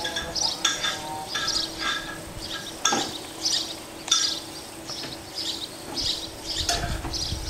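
Bird chirping: short, high notes repeated about twice a second, some with lower notes mixed in.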